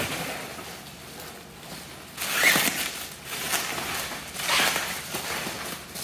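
Bubble wrap crinkling and rustling as it is pulled away by hand, in several bursts about a second apart.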